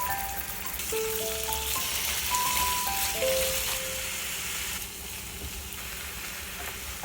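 Food sizzling in a frying pan, a steady hiss that comes in suddenly, with light background music playing over it for the first half.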